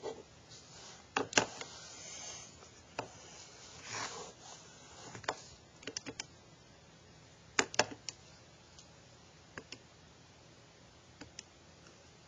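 Buttons of a TI-30Xa scientific calculator being pressed: a string of short, irregular clicks as a calculation is keyed in, with a couple of soft rubbing sounds about two and four seconds in.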